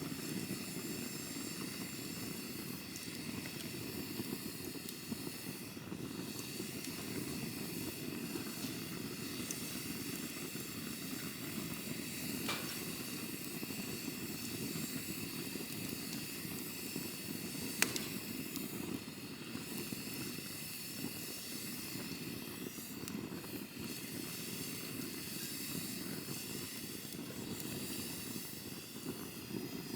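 Campfire burning, a steady low rush of flames with a faint crackle, and two sharp pops from the wood, a little under halfway through and again about two-thirds of the way through.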